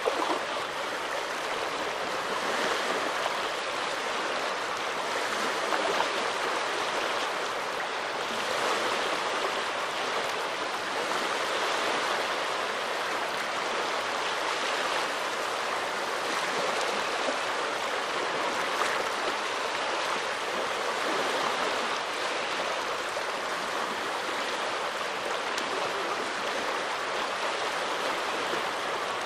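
Small waves of the Gulf of Finland washing ashore in a steady rushing wash, swelling and easing gently.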